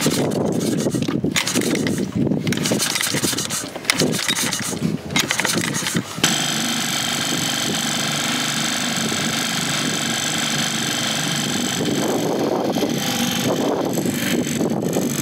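Small dinghy outboard motor, cowling off, starting on the pull cord: it runs unevenly for about six seconds, then settles into a steady run. It is running again now that its blocked carburetor jets have been cleaned.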